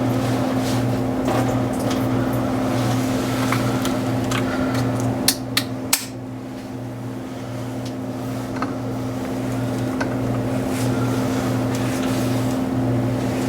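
Steady low mechanical hum, like a fan or motor running, with scattered light clicks and three sharp metallic knocks close together about five to six seconds in.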